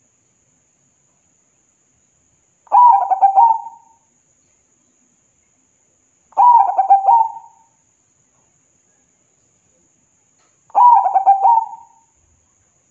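Zebra dove (perkutut) cooing: three song phrases of quick stuttering coo notes, each about a second long, coming about four seconds apart.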